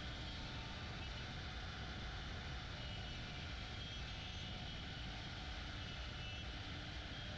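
Steady machine noise from a CNC router running, a constant whir with faint high tones and no change in pitch.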